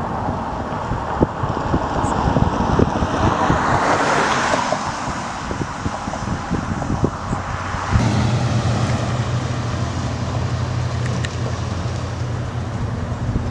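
Wind buffeting the microphone over a steady rush of noise, with a vehicle passing about four seconds in. A low, steady engine hum starts about eight seconds in and carries on.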